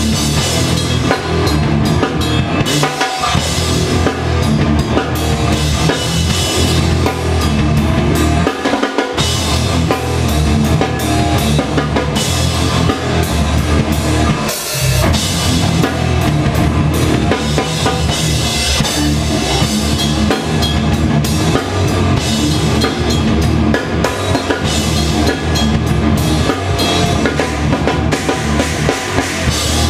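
Live rock band playing loud, with a close-up drum kit driving it: hard-hit drums, bass drum and cymbals over bass guitar. The low end drops out for a moment three times, about 3, 9 and 15 seconds in.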